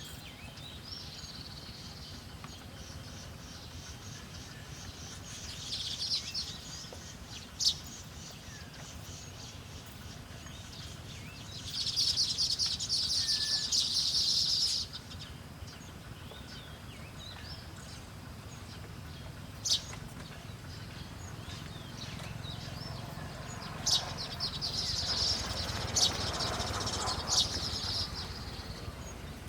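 Small forest bird giving high, rapid chittering calls in several bursts, the longest lasting about three seconds; a few sharp clicks are scattered between them.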